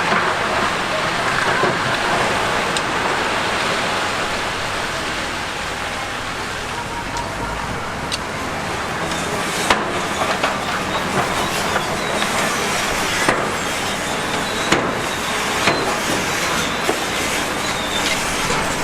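Heavy construction machinery working: a steady mechanical grinding and rumble, with sharp metallic knocks now and then from about halfway through.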